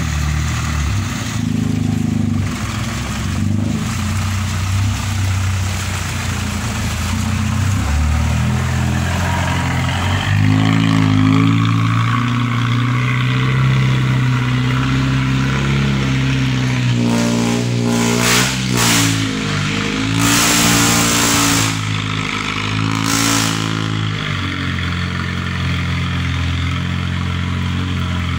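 Vehicle engine revving hard under load while climbing a slippery, muddy slope on tyres fitted with chains. Its pitch rises and falls repeatedly, with short bursts of hissing noise about two-thirds of the way through.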